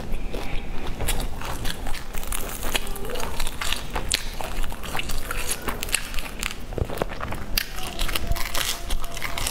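Close-miked eating of a crumb-coated fried bun: the crisp crust crunching and crackling in many irregular clicks as it is chewed, torn apart and bitten.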